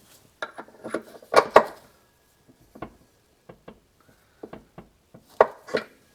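Short knocks and clatters of a shock absorber and its mounting bolts being handled and fitted into the suspension mounts, with small clicks in between. The loudest are two quick knocks about one and a half seconds in and two more near the end.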